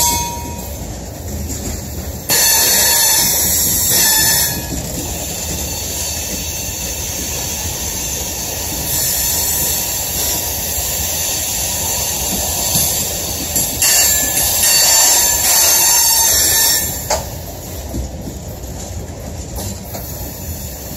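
Loaded coal cars rolling past: their steel wheels squeal and screech against the rail over a low rumble. The squeal swells louder about two seconds in and again about two-thirds of the way through.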